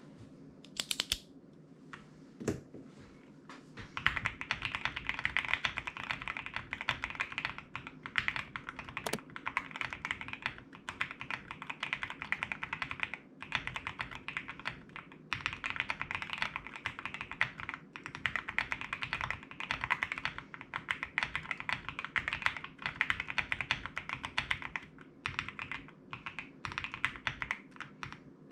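Typing on a Qwertykeys QK65 R1 mechanical keyboard with lubed and filmed Banana Split linear switches, Drop MT3 keycaps, a POM plate and full foam dampening. A few scattered keystrokes come first, then from about four seconds in there is a steady run of rapid keypresses, broken by a few brief pauses.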